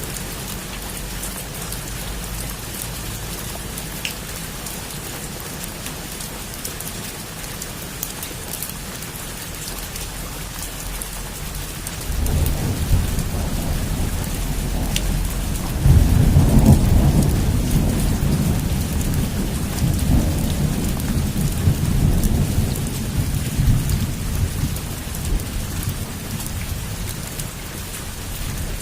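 Heavy rain falling steadily on a roof, with a long rumble of thunder that starts about twelve seconds in, is loudest a few seconds later, and slowly dies away.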